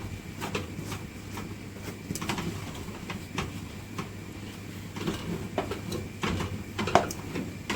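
Ugali being stirred and turned in a cooking pot: irregular knocks and scrapes of the cooking stick against the pot as the stiff, sticky dough is worked, over a steady low hum.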